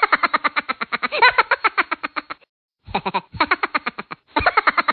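Fast, repeated 'ha-ha-ha' laughter played as a looped sound effect. It runs at about ten pulses a second, breaks off about two and a half seconds in, and starts again half a second later.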